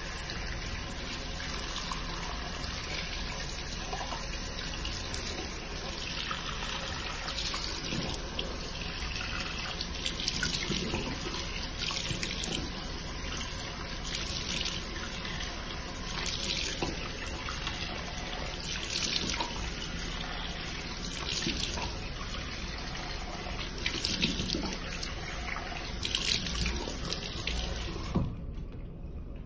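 Tap running into a sink, with a splash every couple of seconds as water is scooped up to rinse a charcoal face mask off the face. The tap is turned off about a second before the end.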